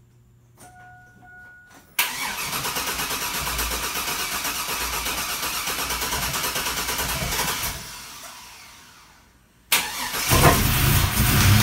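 Freshly rebuilt GM 5.3 L Vortec V8 being started for the first time: the starter cranks it steadily for about six seconds, and the sound fades away. About ten seconds in it cranks again, the engine catches and runs loudly.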